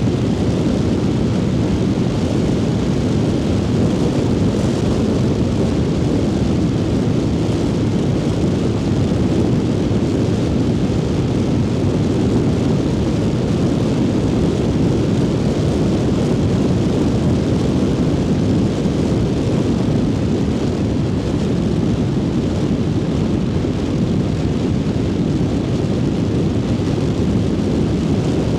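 Triumph Speed Twin 900's parallel-twin engine running at a steady cruise, mixed with a constant low rush of wind noise from riding.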